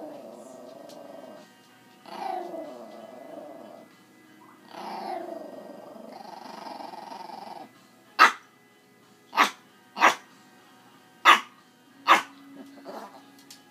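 Yorkshire terrier 'talking': three drawn-out, growling vocalizations that waver up and down in pitch, the last about three seconds long, followed by five short sharp barks about a second apart.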